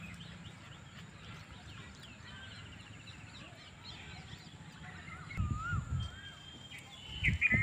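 Wild birds chirping and whistling all through, including a fast trill about two and a half seconds in and wavering whistles after five seconds. Short low thuds come about five and a half seconds in and again near the end.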